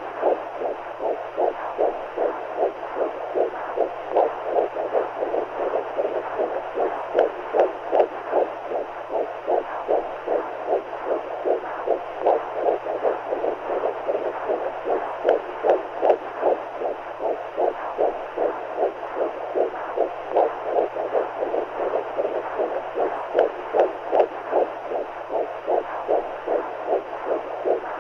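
Womb sound: a whooshing noise pulsing about twice a second like a heartbeat, over a faint steady hum.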